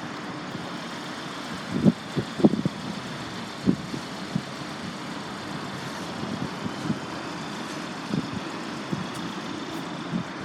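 Steady outdoor road-traffic noise, with a few brief faint sounds in the first four seconds.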